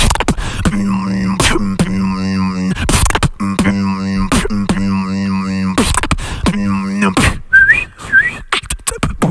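Beatboxing cupped close into a handheld microphone: a held, hummed bass tone punctuated by kick and snare sounds, with two short rising whistled notes near the end.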